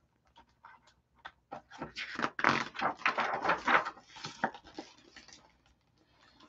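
Pages of a large picture book being turned and handled: a run of paper rustles and crinkles with small taps, busiest in the middle and thinning out near the end.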